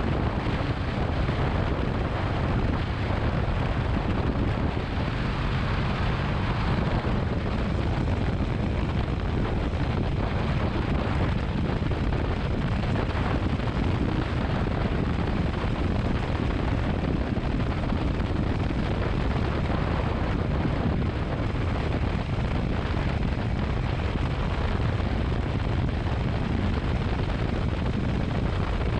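Motorcycle riding at a steady road speed: the engine drones steadily under a thick rush of wind across the microphone, with no change in pace.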